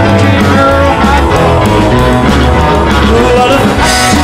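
Rock-and-roll music with guitar and singing, loud and steady over a heavy bass.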